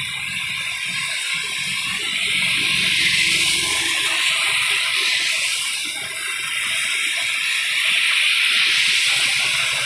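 Heavy rain pouring down onto a waterlogged road, a steady hiss of falling water, swelling twice as vehicles drive through the standing water.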